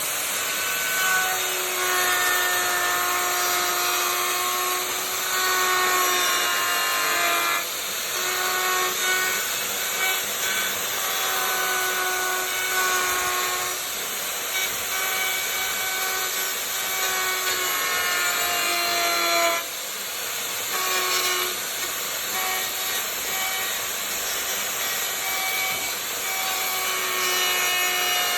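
Handheld wood router running at high speed and cutting a profile into the edge of a wooden table: a steady high whine over a hiss of the bit chewing wood. Twice the whine sags and breaks briefly as the bit takes load.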